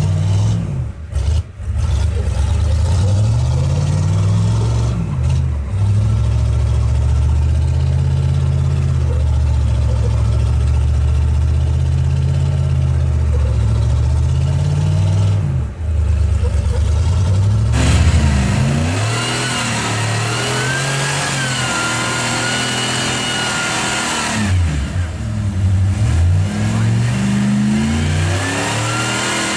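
Rock buggy engine revving hard, its pitch rising and falling again and again as the spinning tyres churn in sand. About two-thirds of the way through the sound changes abruptly to engine revving with more hiss and a wavering higher whine.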